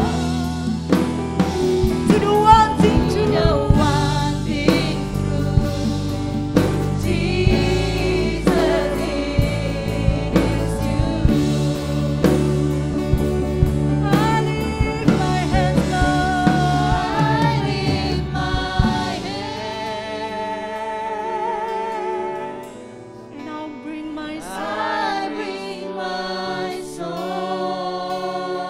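Christian worship song played by a band with drum kit and bass, with singing over it; about two-thirds of the way through, the drums and bass drop out and the music goes quieter.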